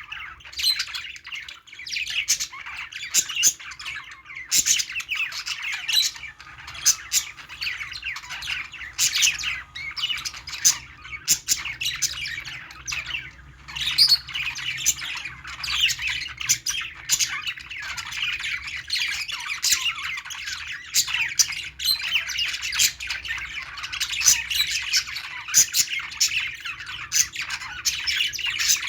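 A group of small pet parrots, budgies and lovebirds, chirping and squawking continuously in many overlapping short, high calls.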